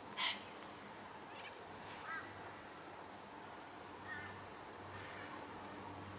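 Steady high-pitched insect drone, crickets or similar, with a few short bird calls over it: the loudest just after the start, then others about two and four seconds in.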